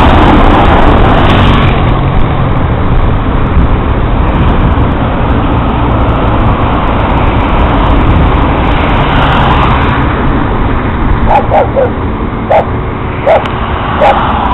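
Highway traffic running steadily: a heavy truck passes close at first, then cars go by. About eleven seconds in, a dog starts barking, a run of short barks every half second or so.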